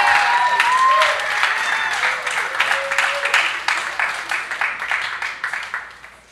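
Audience applauding and cheering, with a few whoops in the first half; the clapping thins out and fades near the end.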